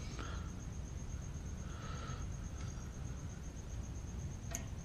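Crickets chirping steadily, with short bursts of metal-on-metal handling as cotter pins are worked into a brake caliper's pad-retaining pins, and one sharp metallic click near the end.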